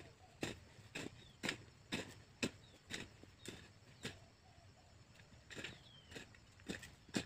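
Short-handled hoe blade chopping into dry soil, striking about twice a second, pausing briefly about halfway before picking up again; the hoe is cutting an irrigation channel through a vegetable bed. Birds chirp faintly in the background.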